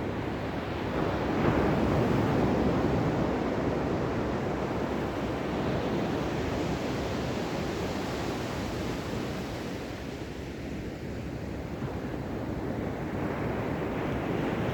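Ocean surf, waves washing and breaking in a continuous rushing noise. A wave swells up about two seconds in, the wash eases a little past the middle, and it builds again near the end.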